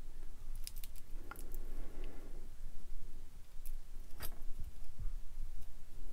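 Small clicks and taps of fingers handling a plastic scale-model engine, with a sharper click about four seconds in, over a low steady hum.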